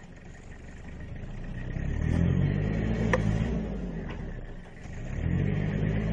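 Car engine revving hard twice as the stuck car tries to drive out of mud over a traction aid placed under the wheel. It builds up over the first couple of seconds, eases off near the end, then revs up again.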